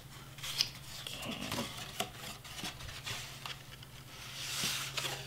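Cardstock being folded and creased by hand along its score lines: paper rubbing and rustling with small clicks, loudest near the end.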